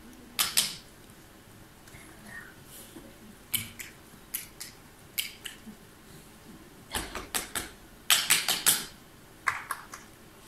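Scattered short clicks and rustles, with a denser run of them a little past the middle.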